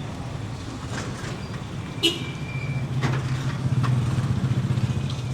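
City street traffic: a motor vehicle engine running close by, its low drone growing louder from about three seconds in. A sharp click and a short high-pitched note come about two seconds in.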